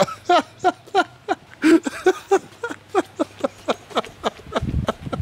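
A man laughing hard in short, even bursts, about three a second.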